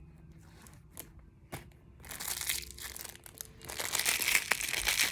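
Plastic packaging crinkling as it is handled, starting about two seconds in and getting louder near the end, after a couple of faint clicks.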